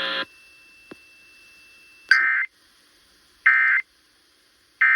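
Emergency Alert System SAME end-of-message code: three short bursts of buzzy digital data tones, each under half a second, about 1.4 seconds apart, marking the end of a relayed alert. A preceding tone cuts off just after the start, and a faint steady high tone and a single click come before the bursts.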